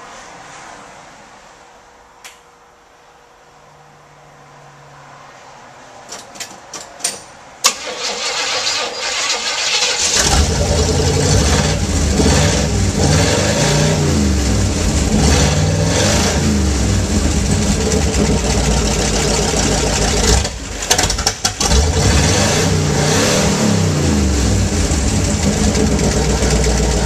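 A 1976 GM station wagon's engine started: a few clicks, then cranking, and it catches about ten seconds in. It then runs loudly and is revved up and down, with a brief dip about twenty seconds in.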